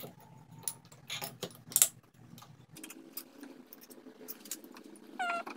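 Small clicks and knocks as a sharpening stone is set into a wooden stone holder fitted with metal bolts and the holder is adjusted by hand, with a sharper knock just under two seconds in. A short squeak comes near the end.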